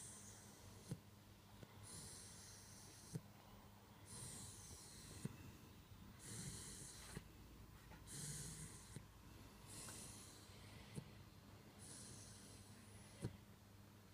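A 10-week-old Dogue de Bordeaux puppy snoring softly in its sleep, with a hissing breath roughly every two seconds. A few short sharp ticks fall between some of the breaths.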